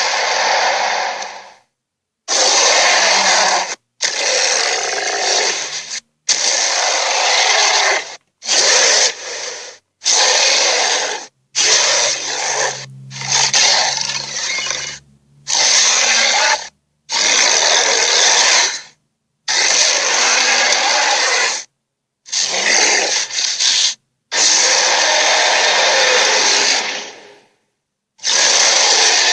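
A run of about fifteen harsh, unpitched gorilla calls played as separate sound-effect clips, each one to three seconds long, with short silent gaps between them.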